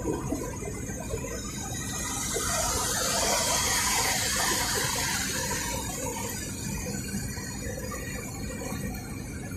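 Steady road and engine noise of a moving car, heard from inside. A hissing swell builds about two seconds in, peaks near the middle and fades away.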